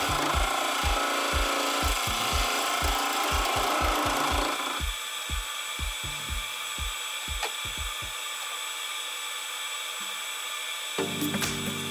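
A wood lathe spins a spalted hickory blank while a gouge scrapes at the centre of its end grain, over a regular low thump. About five seconds in the cut stops and the lathe coasts down, its thumps slowing and ending about eight seconds in. Near the end a low mechanical hum starts.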